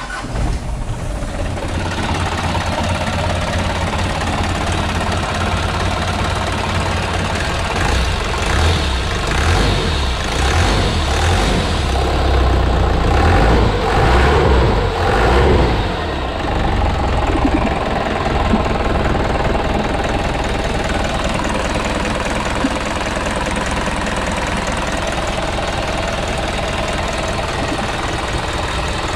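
Mitsubishi Canter's 4D34 four-cylinder diesel engine running at idle, heard close up from the open engine bay. It gets louder and rougher for several seconds in the middle, then settles back to a steady idle.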